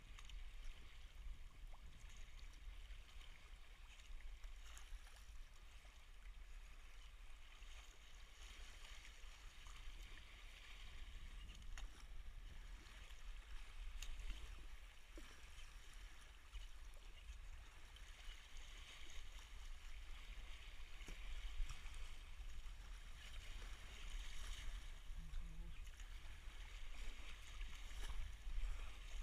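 Sea kayak paddled through choppy sea: water splashing and rushing along the hull as the bow cuts through waves and the paddle blades dip, swelling and fading with each wave, over a steady low rumble.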